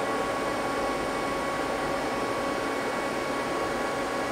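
Steady whir and hum of running shop machinery: an even hiss with a few steady whining tones, unchanging throughout.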